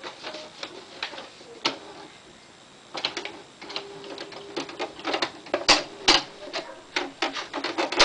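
Smith Corona SD750 electronic typewriter typing. A few scattered clacks come first, then from about three seconds in a quick run of mechanical clacks, with a short motor hum between some of them.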